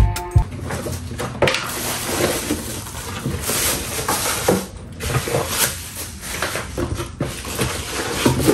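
Rustling with scattered light knocks and clicks from household things being handled and moved about.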